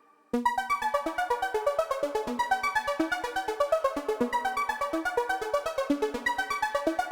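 Background electronic music: a synthesizer plays a fast arpeggio of evenly repeated notes, starting abruptly just after a moment of near silence.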